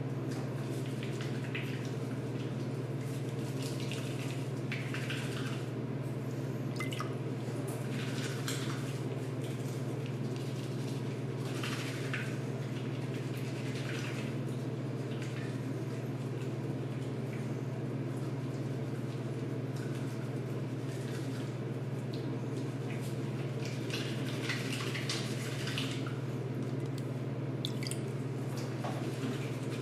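Wet, soapy hands rubbing over bare skin, making irregular short wet crackles over a steady low hum.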